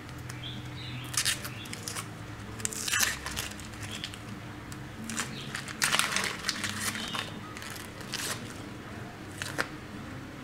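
Dry, papery yellow-onion skin crackling and tearing as it is peeled off by hand, in irregular bursts of rustling, the loudest about three and six seconds in.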